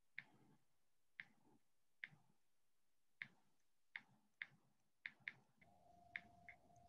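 Near silence with faint, sharp ticks about once a second, like a clock ticking. A faint steady tone joins a little past halfway.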